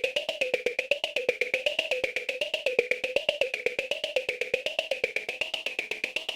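AnalogFX SER-2020 analog synthesizer playing a rapid train of woody clicks, about ten a second. The clicks ring through two filter resonances, one low and one high, that waver up and down about once a second.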